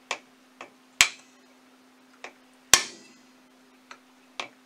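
A flat-blade screwdriver wedged into the case seam of a 1955 Johnson SeaHorse 5.5 outboard powerhead, its handle struck repeatedly to pop a plate off. There are sharp metallic taps, with two hard ringing blows about a second in and near three seconds in between lighter taps.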